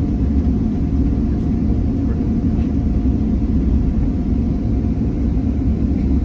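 Jet airliner cabin noise while the plane rolls on the ground before take-off: a steady low engine and rolling rumble with a faint steady hum above it.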